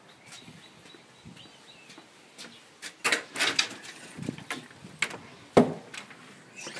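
A glass storm door and wooden front door being opened: a run of sharp clicks and knocks from the handle and latch starting about two and a half seconds in, then one louder knock a little after five and a half seconds.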